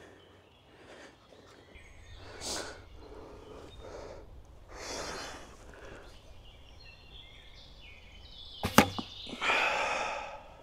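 A shot from a Mibow recurve bow: a sharp, loud double crack about nine seconds in as the string is released and the arrow strikes the 3D target, followed by about a second of rushing noise. Before it come a few soft swells of noise while the bow is readied and drawn.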